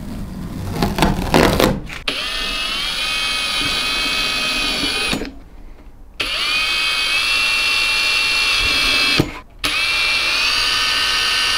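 About two seconds of rustling and scraping, then a cordless drill running in three stretches, each spinning up with a rising whine, as holes are drilled into a thin hinge strip.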